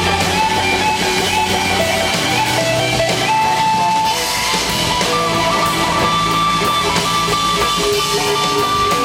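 Live blues-rock band playing: electric guitars and drums, with a lead guitar line of long held notes that step and bend.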